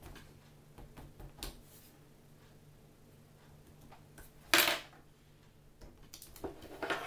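Hand tools being handled and knocked on a workbench: a few light clicks, one louder sharp knock about four and a half seconds in, then more small rattles near the end.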